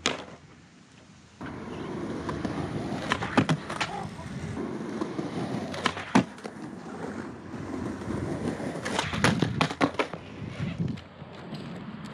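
Skateboard wheels rolling on smooth concrete flat ground, starting about a second and a half in, broken by sharp clacks of the tail popping and the board landing as 180 ollies are tried. The clacks come in clusters about 3, 6 and 9 seconds in.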